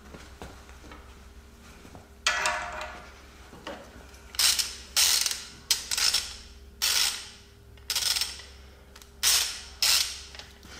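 Hand ratchet wrench being worked on a suspension nut or bolt, giving a series of short bursts of clicking about a second apart, starting about two seconds in.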